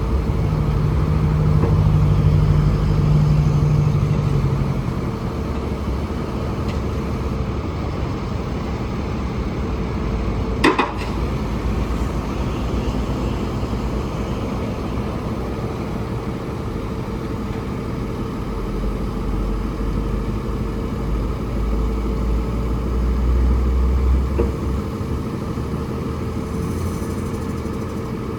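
Diesel engine of a Freightliner M2 grapple truck running, speeding up for the first few seconds and again for a few seconds past the middle, with a steady whine over it. A single sharp click with a short falling squeak comes about 11 seconds in.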